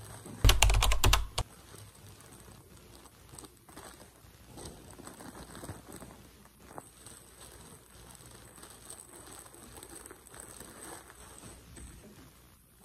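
Plastic packaging crinkling as it is handled: a loud burst of rapid crackles about half a second in, then faint scattered rustles and clicks.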